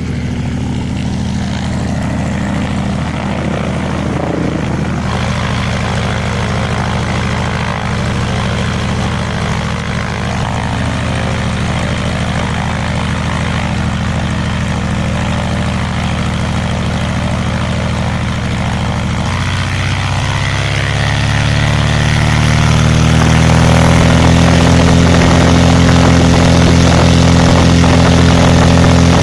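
LOM Praha M337-AK inverted six-cylinder air-cooled aero engine, freshly overhauled, running steadily on its first run with the propeller turning. From about twenty seconds in, the revs rise and it runs louder and higher-pitched, holding at the higher speed.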